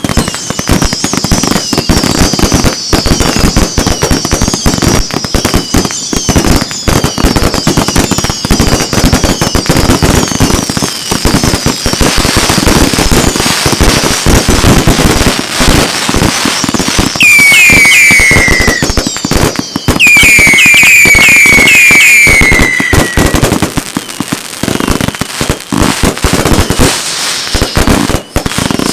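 Consumer firework cakes firing in a dense barrage of rapid bangs and crackles. High warbling whistles run through the first half. A little past the middle come two loud runs of falling whistles.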